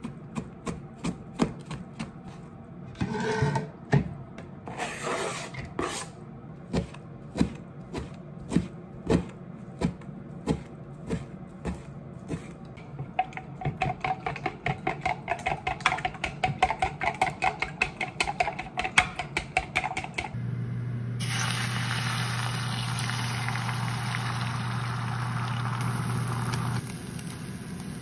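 A kitchen knife chopping pickled red ginger on a cutting board, knocking about twice a second. Then chopsticks beat eggs in a glass bowl with fast clicking. About 20 seconds in, a steady sizzle takes over as the egg mixture fries in a rectangular tamagoyaki pan on an induction hob.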